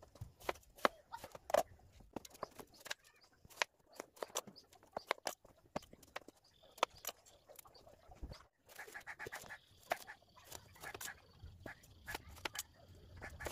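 Kitchen knife cutting through watermelon on a plastic cutting board: an irregular string of sharp clicks and cracks as the blade splits the rind and knocks against the board.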